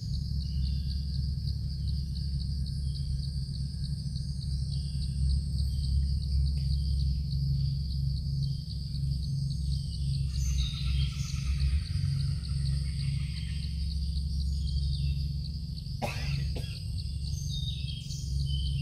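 Outdoor garden ambience: insects trilling steadily in a fast, even pulse, with birds chirping now and then over a low rumble. A single sharp click about 16 seconds in.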